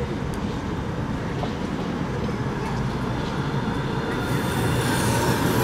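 Alstom Citadis 403 tram approaching along street track: a steady low rumble that grows louder, with rising wheel-on-rail hiss, as it draws near over the last second or two.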